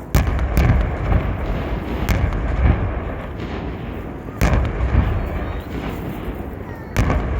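Aerial fireworks shells bursting: a sudden loud bang at the start, then sharp bangs about two seconds in, about four and a half seconds in and near the end, over a continuous low rumble.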